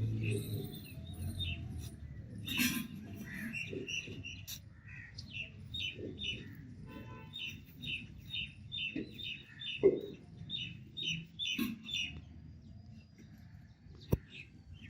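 Small birds chirping: a long run of short, high chirps, quickening into an even series of several a second in the middle. A low sound fades out at the start, and a single sharp click comes near the end.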